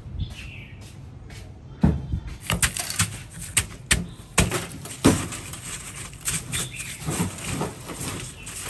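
Crushed ice being scooped and spread by hand over a plate: irregular crunching and clicking from about two seconds in, after a low steady rush of water at the start.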